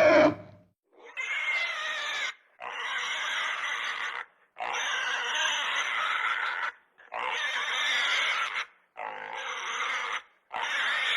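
Pig calling in six harsh, noisy bursts, each one to two seconds long, with short silences between them.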